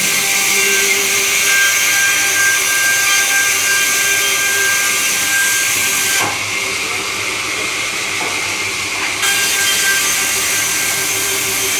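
Sawmill saw cutting wood: a steady high hiss with a constant whine. The hiss eases for about three seconds past the middle, then comes back abruptly.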